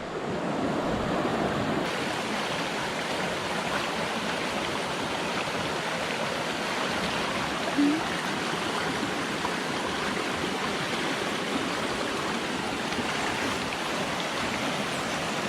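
River water rushing steadily, with one brief short sound about eight seconds in.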